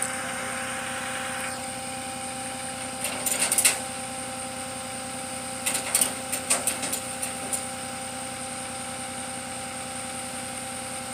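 Flatbed tow truck running with a steady mechanical hum while a pickup sits on its tilted bed. A cluster of sharp knocks comes about three seconds in, and another run of knocks comes a couple of seconds later.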